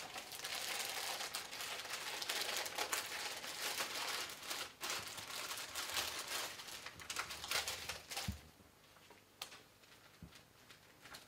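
Thin plastic crinkling and rustling, full of small clicks, as a non-rebreather oxygen mask and its plastic packaging are handled. It stops about eight seconds in, leaving a few light clicks.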